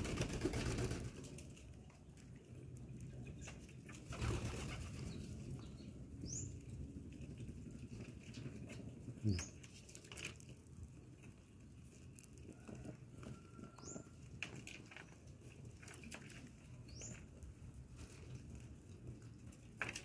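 Fancy pigeons bathing in a shallow tray of water, flapping their wings and splashing, loudest at the start and again about four seconds in. A few short, high, rising chirps come every few seconds.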